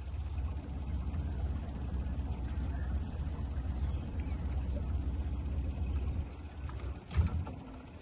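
Low, steady wind rumble on the microphone by open lake water, with a sharp knock about seven seconds in.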